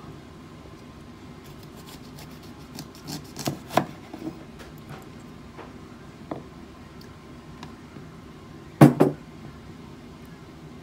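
Chef's knife cutting a yellow bell pepper on a wooden cutting board: a few scattered soft knocks and rubs of blade and pepper on the board, with the loudest, a quick pair of knocks, about nine seconds in.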